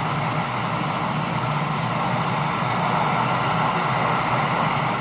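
Steady hiss of static from a CB radio receiver's speaker between transmissions, with no voice coming through.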